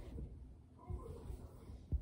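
A child shifting and turning over on a sofa close to the microphone: low rustling and bumping of body and blanket on the cushions, with one sharp thump near the end.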